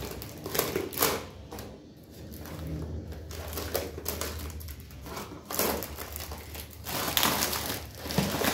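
Packaging crinkling and scraping in irregular bursts as it is cut open with scissors and pulled off a newly bought mixing bowl.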